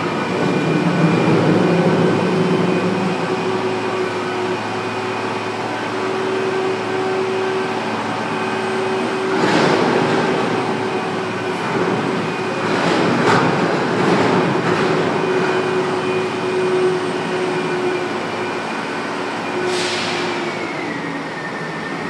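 Truck engine and hydraulic hoist running with a steady whine as a tipping container is raised to dump its load and lowered again. Several bangs and rattles of the container and load come near the middle, and the whine drops in pitch near the end as the hoist stops.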